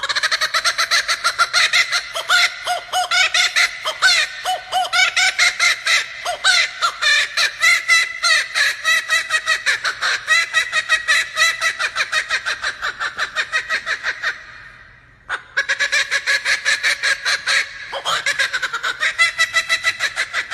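Laughing kookaburra calling: a long run of rapid, loud, cackling notes. It breaks off briefly after about fourteen seconds, then starts again.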